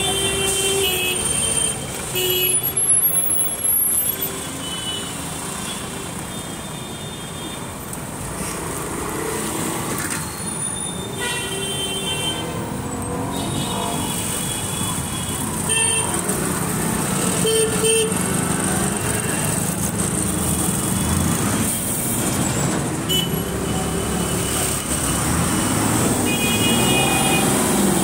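Road traffic: vehicle engines running and passing, with several short horn honks scattered through.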